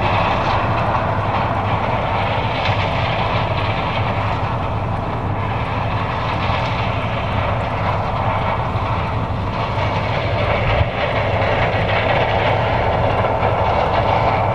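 John Deere 9550 combine running steadily while harvesting corn: a steady low engine hum with dense mechanical noise from the working machinery over it.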